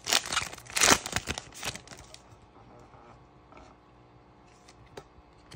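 Shiny foil wrapper of a Panini Donruss Optic trading card pack being torn open and crinkled, with sharp crackling tears in the first two seconds. After that, only faint rustles and small clicks as the cards are handled.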